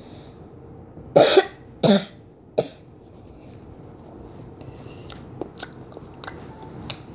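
A boy coughing three times in quick succession about a second in, the last cough weaker, followed by a few faint clicks.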